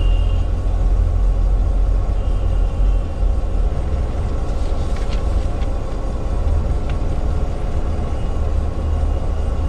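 Diesel engine of a bus idling, heard inside the passenger cabin as a steady low rumble, with a faint high whine on and off and a few light clicks.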